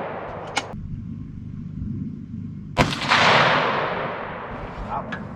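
A single rifle shot about three seconds in, its echo rolling away over a couple of seconds. At the start, the echo of an earlier shot is still dying away.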